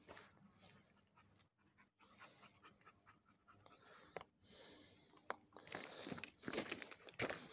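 A hiker's footsteps on a gravelly mountain trail, with heavy breathing from the climb. The steps grow closer together and louder in the last two seconds.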